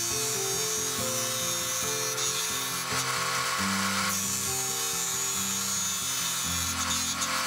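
Background music, with a CNC-converted wood lathe turning purpleheart underneath it. The tool makes a rasping cutting hiss that drops away and returns a few times as it makes its automatic roughing passes.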